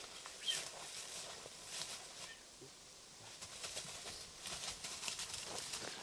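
Footsteps crunching through dry fallen leaves dusted with snow, with brush and twigs crackling underfoot in an irregular, faint patter.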